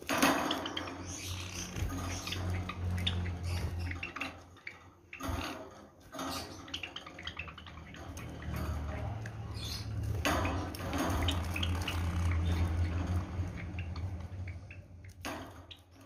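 Java sparrows splashing and fluttering in a cage's water bowl: a patter of small splashes and wing beats that comes and goes in spells, with a low steady hum underneath.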